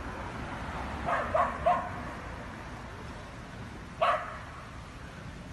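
Dog barking: three quick barks about a second in, then a single louder bark about four seconds in.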